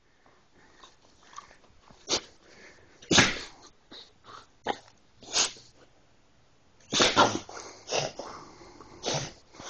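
Pit bull sneezing again and again in short, sharp bursts, about nine in all, the loudest about three seconds in.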